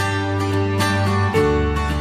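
Background music of plucked strings over held bass notes, changing chord about a second and a half in.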